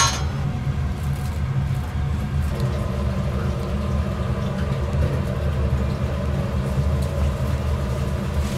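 Steady low mechanical rumble of a running machine, with a short sharp click right at the start.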